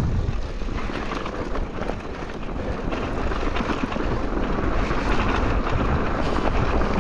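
Wind rumbling on the microphone while riding a mountain bike over rough ground, with scattered small rattles and clicks throughout.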